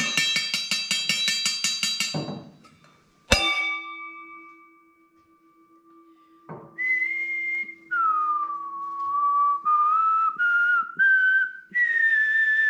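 A brief, fast-ticking musical phrase, then a single struck bell-like note that rings on for several seconds. After that a person whistles a slow tune in held notes, dipping low and then climbing step by step.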